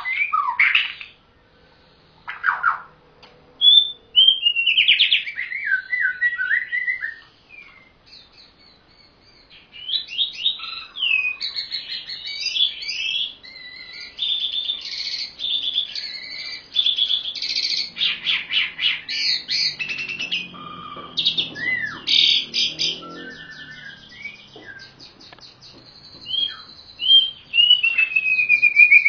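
Songbirds singing, a white-rumped shama (murai batu) and a jalak uren starling: loud varied whistles, swooping notes and fast trills in phrases, with short pauses between them. A long falling whistle comes near the end.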